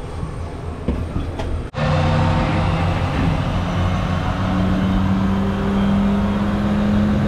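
An engine runs with a steady droning hum, its pitch creeping slightly upward. It follows an abrupt cut, about two seconds in, from a noisier rumble with a few knocks.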